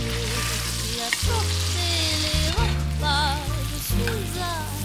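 A steak sizzling in a stainless steel frying pan. Music plays over it, with held low bass notes that change every second or so and wavering higher tones.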